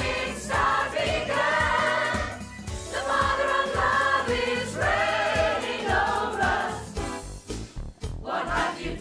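Mixed choir singing an upbeat gospel-style song over a backing track with a steady beat. The voices drop out briefly near the end while the beat carries on, then come back in.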